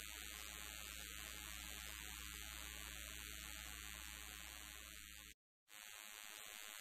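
Steady hiss with a low hum underneath and no distinct event. The sound cuts out completely for a split second about five and a half seconds in, then the hiss returns.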